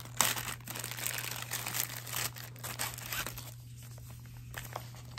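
Packaging of facial sheet masks crinkling as it is handled, busiest in the first three seconds or so and then dying down to a few scattered rustles.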